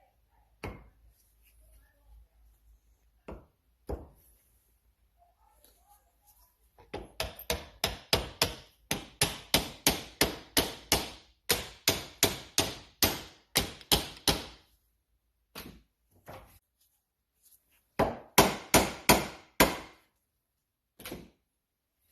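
Hammer tapping in a fast, even run of about three or four blows a second for several seconds, then a shorter run after a pause, while a Honda 600 brake caliper is fitted back onto its yoke. A few single knocks come before the first run.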